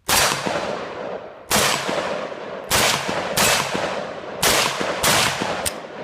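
Romanian Mini Draco AK pistol in 7.62x39 fired six times at an uneven pace, roughly a second apart, each loud shot ringing out before the next.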